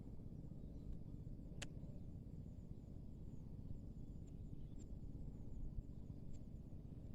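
Faint outdoor ambience: a steady low rumble with a sharp click about one and a half seconds in, a few faint ticks later, and faint high chirping.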